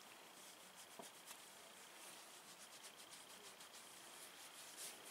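Near silence with faint, soft rustling of hands rubbing an Italian greyhound's short coat, and a small click about a second in.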